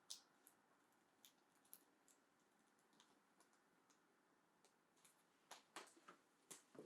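Faint, scattered small clicks and taps, closer together near the end: a leather collar with a leash being fastened, its buckle and clasp clicking.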